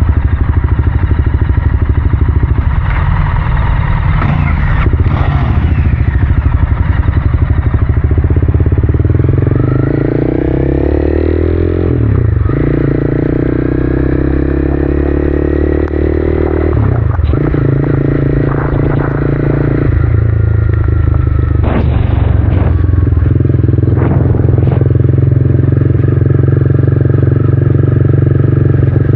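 A vehicle engine running under acceleration, its pitch climbing and then dropping at several gear changes.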